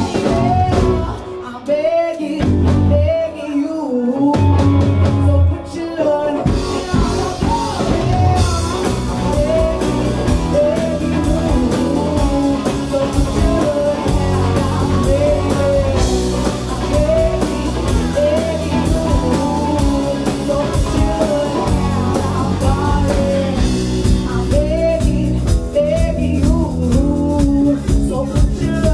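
Live blues-rock band playing: electric guitars, bass guitar and drum kit with a woman singing. The first few seconds are choppy, with short breaks, before the full band plays on steadily from about six seconds in.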